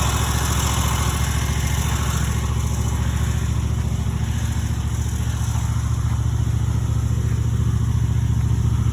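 An engine running steadily at a constant low drone, with no change in speed.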